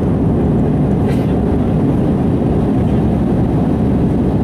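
Airbus A320 cabin noise, heard from a window seat over the wing: a steady, loud rumble of the jet engines and airflow as the airliner climbs out after takeoff.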